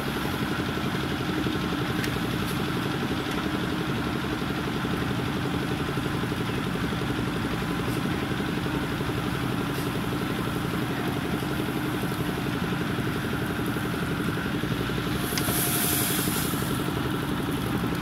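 JCB 3DX backhoe loader's diesel engine running steadily as the backhoe arm digs, with a brief high hiss near the end.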